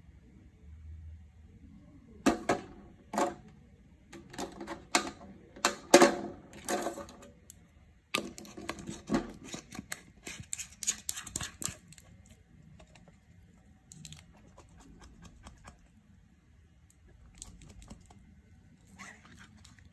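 Glass mason jar and its metal screw-band lid clicking and scraping as the lid is set on and screwed down: a string of sharp clicks and knocks for about ten seconds, then only faint ticks.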